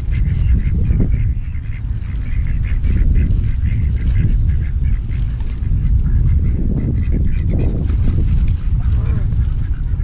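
Ducks quacking and calling as they crowd around to be fed, over a steady low rumble.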